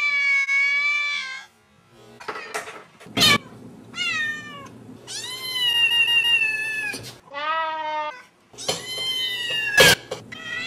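Kittens and young cats meowing: a string of separate meows, each with its own pitch, some long and drawn out and others short and falling. Two sharp clicks fall between them, the louder near the end.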